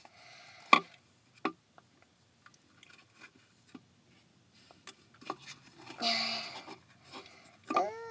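Hands squishing and gathering sticky homemade flour-and-dish-soap slime, with a few sharp clicks and taps, the loudest about a second in, from handling the plastic container and wooden stick. A brief hum-like voice sound near the end.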